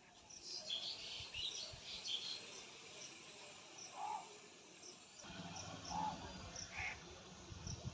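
Birds chirping and calling outdoors: a quick burst of high chirps in the first two seconds, then single lower calls about four and six seconds in, over a faint high chirp repeating about twice a second. A low rumble comes in about five seconds in.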